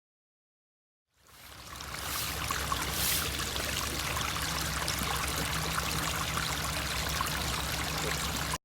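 Silence for about a second, then water fading in and running steadily: the stream of a small pondless waterfall trickling and splashing over rocks.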